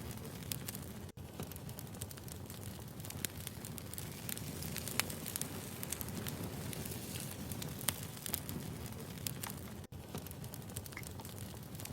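Wood fire burning, a steady low rush with irregular sharp crackles and pops of burning firewood. The sound cuts out for an instant twice, about a second in and near the end.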